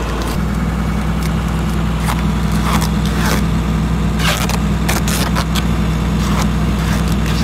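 Diesel engine idling steadily, with several short rasping rips of duct tape being pulled off the roll and wrapped around steel pipes.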